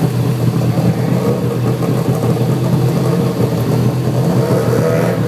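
Motor engine running steadily with a low, even hum, its pitch rising slightly near the end.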